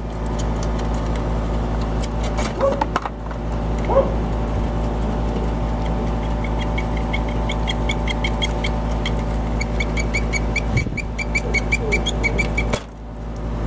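A steady mechanical hum runs throughout. A few clicks and scrapes come as the crimp connectors are tugged off the defrost board's terminals. Past the middle, a rapid series of high chirps, about four a second, goes on for several seconds, and the hum drops away suddenly near the end.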